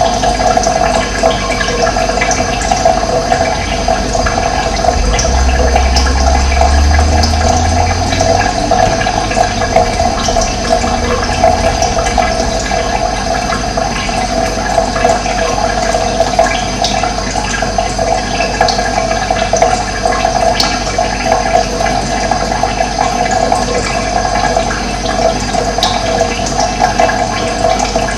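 Running water flowing steadily in a continuous rushing wash, with a brief low rumble a few seconds in.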